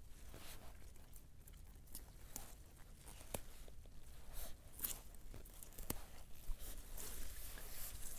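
Irregular rustling and small snapping clicks of forest plants being handled and pushed through, as wild garlic flower stalks are picked.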